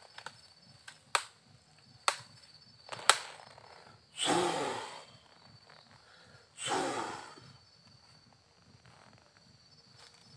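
Two long, loud, breathy sighs or exhalations from a man, a few seconds apart, in the middle of the stretch. Three sharp clicks or knocks come before them.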